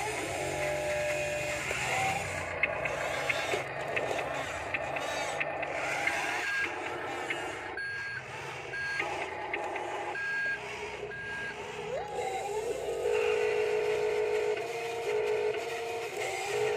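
Huina remote-control toy wheel loader backing up, its sound module playing a reversing beeper over a simulated engine drone. The beeps come about once a second from around six to eleven seconds in.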